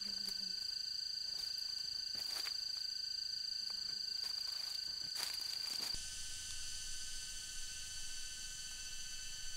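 Insects droning steadily at a high pitch, with a few brief crunches of footsteps on dry bamboo leaf litter. About six seconds in, the drone changes to a fuller, hissier sound.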